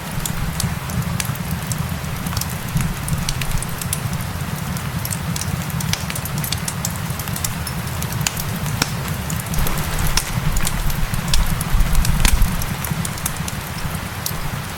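Wood fire crackling with many sharp pops over a steady hiss of rain, and a low rumble that swells for a moment about three-quarters of the way through.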